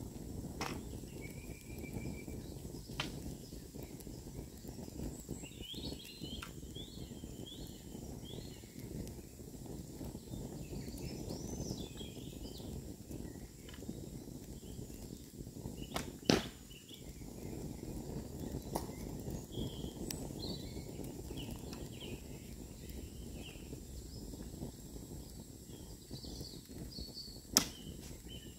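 A longbow loosed twice, each shot a single sharp snap of the string, the first about sixteen seconds in and the second near the end. Birds sing between the shots over a steady low rushing background.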